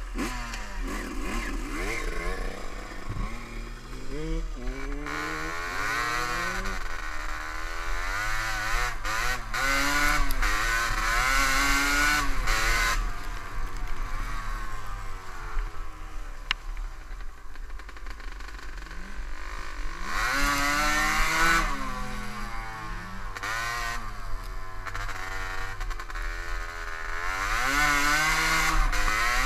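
Kawasaki KDX125 two-stroke single-cylinder enduro motorcycle engine under way, revving up and dropping back in pitch several times as the rider accelerates and eases off along a trail.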